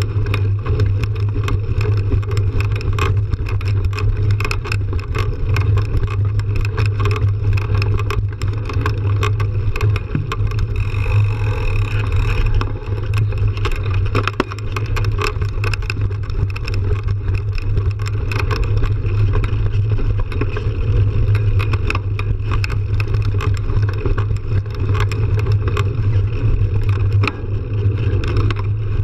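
Mountain bike rolling fast over a dirt trail, heard through a camera mounted on the bike: a steady loud rumble of knobby tyre on dirt and wind buffeting the microphone, with constant small rattles and clicks from the bike over bumps.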